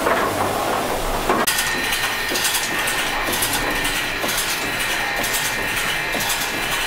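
Steam pumping engine running: a steady hiss of steam that starts suddenly about a second and a half in and pulses two to three times a second, with a thin steady whistle running through it and mechanical clatter underneath.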